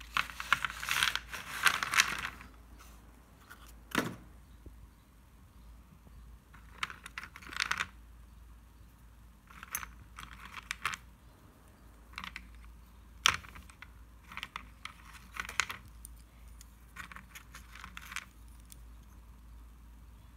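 Thin slate pencils clicking and clattering against each other and the floor as they are handled, in several short bursts, with one sharp knock about four seconds in.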